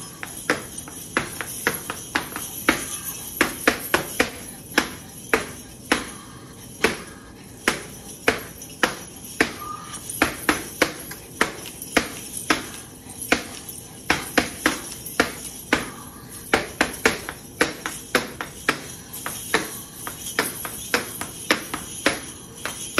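Flamenco footwork: hard-soled dance shoes striking a hard floor in quick, uneven rhythmic strikes, several a second.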